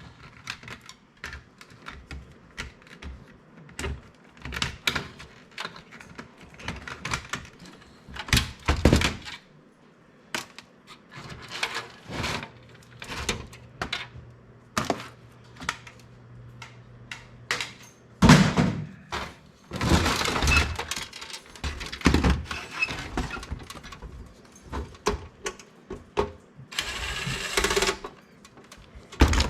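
Metal and plastic computer parts clattering, knocking and clicking as a desktop computer is pulled apart for scrap, with a few longer noisy rattling stretches in the second half.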